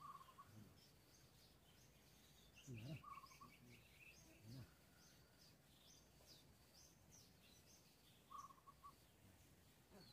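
Faint birdsong in quiet surroundings: repeated high chirps, a short rapid trill about two and a half seconds in, and brief lower whistled notes at the start, about three seconds in and near the end. A couple of faint low sounds come about three and four and a half seconds in.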